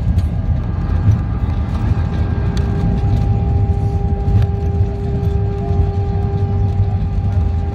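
Cabin noise of an Airbus A321 on its landing rollout, spoilers raised: a loud, heavy low rumble from the wheels and engines as the airliner decelerates on the runway, with a steady hum setting in about two seconds in.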